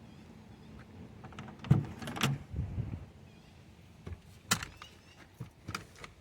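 A few sharp knocks and clatters, the loudest about one and a half to two and a half seconds in and again about four and a half seconds in, with lighter clicks near the end.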